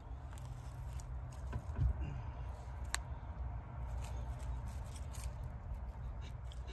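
Hand handling bones in dry leaves and dirt: scattered small rustles, scrapes and clicks, with a low thump about two seconds in and one sharp click about three seconds in, over a steady low rumble.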